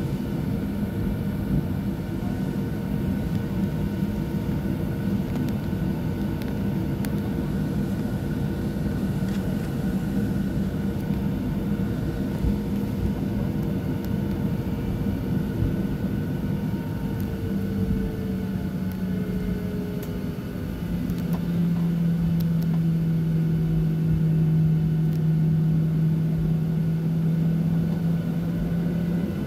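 Boeing 737-800 cabin on the taxiway: the steady rumble and hum of its CFM56 jet engines at low thrust. Past the middle the engine hum glides lower and then settles into a deeper, slightly louder tone.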